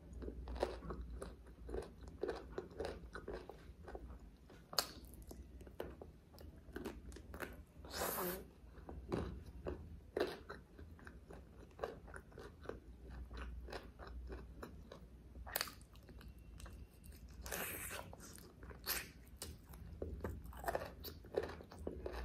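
A person chewing and biting mouthfuls of butter chicken and rice eaten by hand, with many short, irregular mouth clicks and a few longer, wetter bursts.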